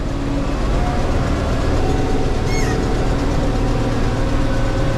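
Tractor engine and round baler running steadily, heard from inside the tractor cab.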